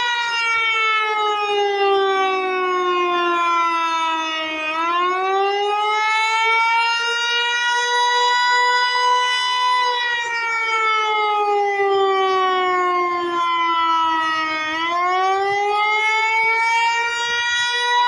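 American Signal Eclipse 8 electronic outdoor warning siren sounding a wail during a test. Its pitch slides slowly down for about four seconds, sweeps quickly back up, holds, then falls and rises again, twice in all.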